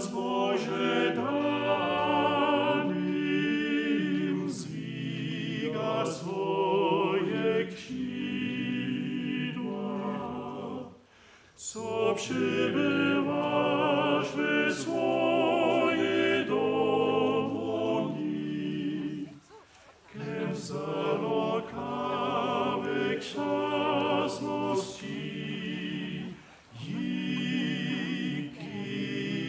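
Male vocal quartet of four singers performing a Sorbian Christmas song a cappella, in long phrases with brief breaks between them.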